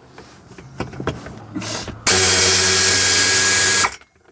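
Air ratchet on a long extension spinning a bolt out at full speed. After a brief blip, it runs flat-out with a loud hiss and whine for nearly two seconds from about two seconds in, then stops suddenly.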